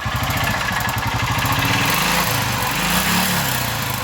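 Honda Titan motorcycle's single-cylinder four-stroke engine running with a very ugly mechanical noise, and revved up and back down twice about halfway through. The mechanic takes the noise for tappet noise together with a connecting-rod knock.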